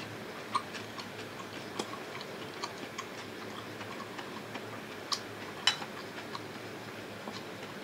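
Faint, irregularly spaced clicks and light taps from eating, mouth sounds and utensils, over a steady low hiss.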